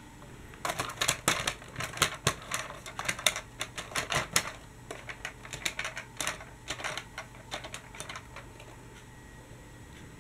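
A plastic Dickie Toys City Liner toy tram being set onto toy track and pushed along by hand: rapid, irregular clicks and clatters of plastic on the rails, thickest over the first few seconds and thinning out after about five seconds.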